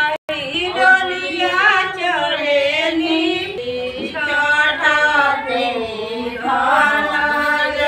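Female voices singing a Chhath Puja devotional song (Chhath geet) in long, held, gliding lines, broken off for a moment just after the start.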